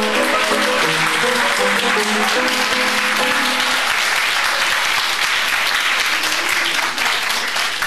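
Audience applauding, with keyboard music playing under the clapping for the first few seconds until it stops about four seconds in; the applause carries on.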